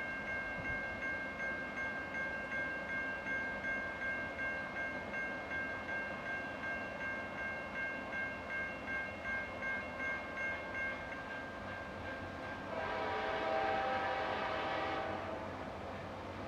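A steady high ringing, pulsing about twice a second, stops about twelve seconds in. Then the horn of an approaching CSX freight train's locomotive sounds one chord for about two seconds near the end.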